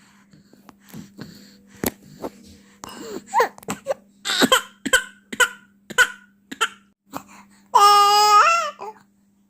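A 4-month-old baby fussing: a string of short coughs, grunts and squeaks, then one loud high-pitched cry lasting about a second near the end.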